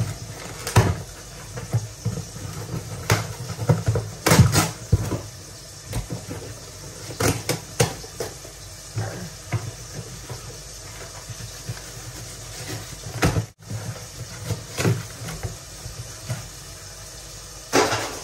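A parcel being unpacked by hand: irregular rustling, tearing and sharp clicks of packaging. A low steady hum runs underneath.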